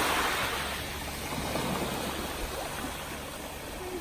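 Small waves breaking and washing up onto a pebble beach, loudest at the start and then ebbing away.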